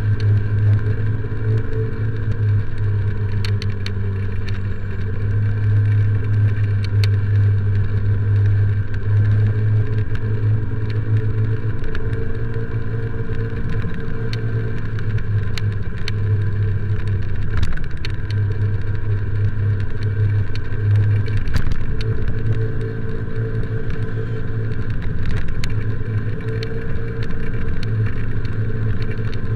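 Motorcycle engine running while riding in traffic, its revs rising and falling, with wind rumble on the helmet-mounted action camera's microphone.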